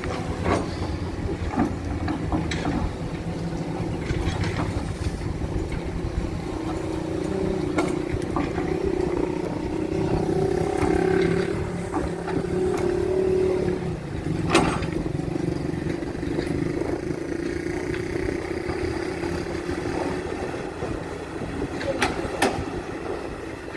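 Heavy engine running steadily, its drone swelling for a few seconds in the middle, with a few sharp knocks, the loudest about two-thirds of the way through.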